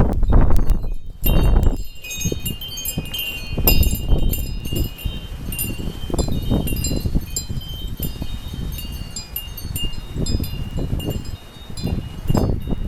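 Metal wind chimes jangling irregularly as a windstorm swings them, struck again and again, over gusts of wind rumbling on the microphone that swell and ease every second or two.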